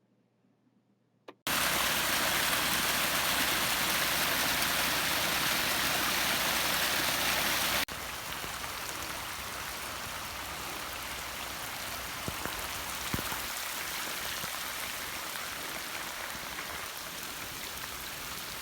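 Near silence for about a second and a half, then rushing rain runoff water, a loud steady rush. About eight seconds in it cuts to a quieter steady flow with rain falling and a few faint drips.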